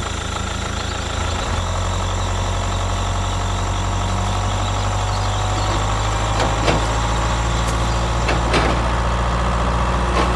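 An engine idling steadily, a low even hum, with a few faint clicks.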